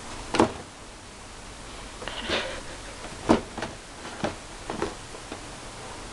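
A baby gnawing and biting at a whole green apple: a few short, sharp biting and sucking sounds at irregular intervals, the loudest just under half a second in and again about three seconds in.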